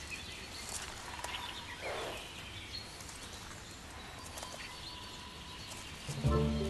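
Quiet forest ambience with faint, scattered bird calls. Background music with held tones begins about six seconds in.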